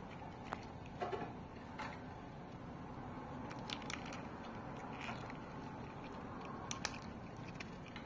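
Hands handling a plastic toy figure and its packaging: scattered small clicks and taps with a few crinkles over a steady low hiss.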